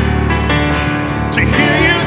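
Church worship band music: acoustic guitar and keyboard holding a steady chord over a strong bass, with the singers' voices coming back in about one and a half seconds in.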